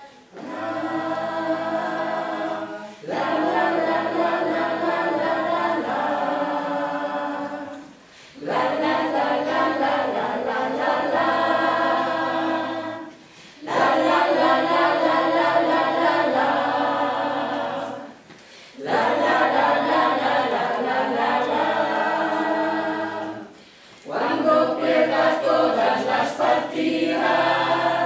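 A small mixed group of men and women singing together unaccompanied, a cappella, in phrases of about five seconds with short breaths between them.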